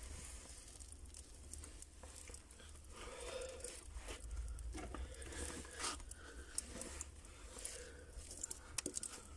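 Faint crackling and scattered sharp clicks from a bed of glowing wood embers as toasted ciabatta buns are lifted off the coals by hand.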